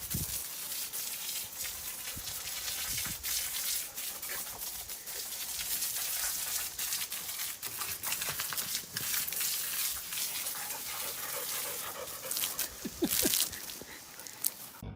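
An old Labrador retriever panting hard, a quick, uneven run of rasping breaths. The sound cuts off suddenly near the end.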